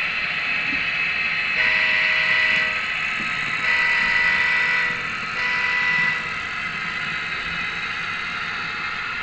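Model trains rolling along the layout's track with a steady whir of wheels and motors. A sound-equipped model locomotive sounds its horn three times: two long blasts, then a shorter one.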